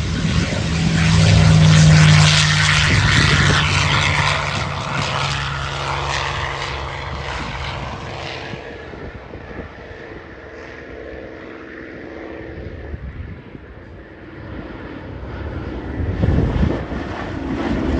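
Piston-engined WWII fighter aircraft flying past. The propeller and engine drone swells to its loudest about two seconds in, then fades as the aircraft draw away. Another pass builds up near the end.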